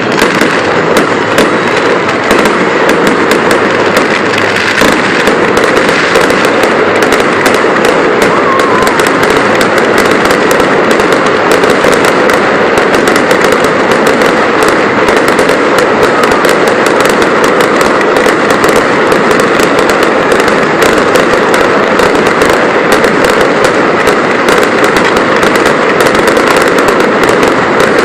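Fireworks going off in a continuous, dense barrage of crackling and bangs, loud and unbroken throughout.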